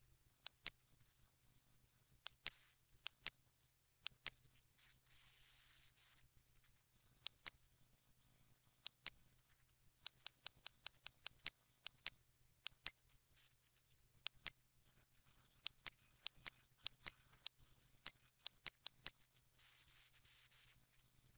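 Computer mouse buttons clicking at irregular intervals, singly and in quick pairs like double-clicks. Twice, about five seconds in and near the end, there is a short stretch of soft hissing rustle, and a faint steady low hum lies under everything.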